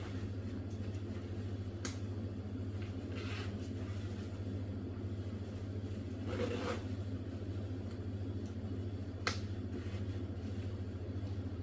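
Steady low hum with a few faint clicks, about two seconds in and again near nine seconds, and a brief rustle about six seconds in.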